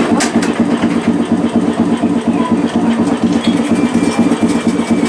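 Air compressor of an Iyotetsu Type 50 tram running while the car stands at a stop, a steady, rapid, even chugging.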